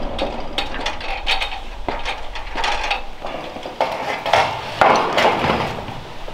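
Corrugated steel roofing panel being cut with tin snips: a series of sharp metallic clicks and crunches, with the thin sheet clanking and rattling, louder about four and five seconds in.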